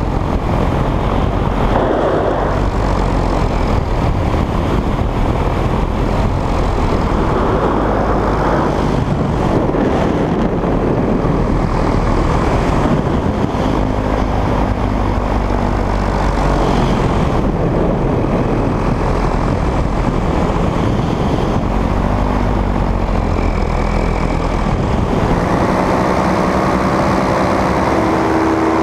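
Polini Thor 250 single-cylinder two-stroke paramotor engine running steadily in flight, its propeller driving it. Its pitch wavers in the last few seconds.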